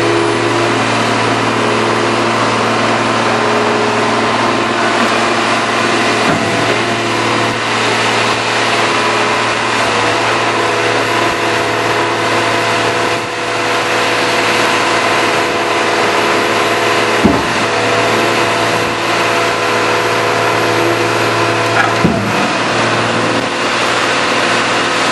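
Cummins 5.9-litre six-cylinder turbo diesel of a scrap baler/logger running at a constant speed, a steady drone with a few steady whining tones over it. A few short sharp clunks cut through, the loudest about 17 seconds in.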